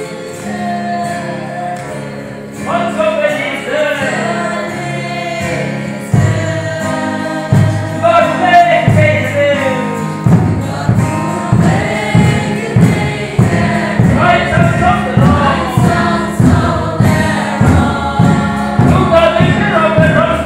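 A congregation of mixed voices singing a hymn together. From about six seconds in, a steady low beat of roughly two strokes a second runs under the singing.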